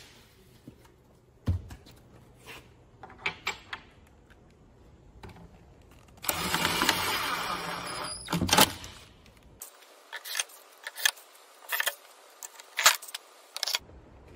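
A Ryobi cordless drill whirs for about two seconds midway, driving a screw through a small metal clip into a plywood cabinet panel. Around it come scattered sharp knocks and clicks of plywood panels and hardware being handled.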